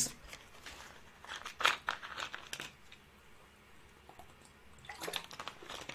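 Plastic water bottle crinkling and clicking as it is handled and drunk from, in scattered short bursts in the first half and again near the end.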